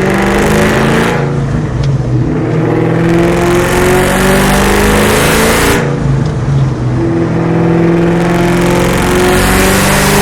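Cammed, Whipple-supercharged Terminator Mustang Cobra 4.6-litre V8 with Kooks headers and Borla ATAK exhaust, accelerating hard through the gears, heard from inside the car. The engine note climbs, breaks off at a gear change about a second in and again near six seconds, then climbs again each time.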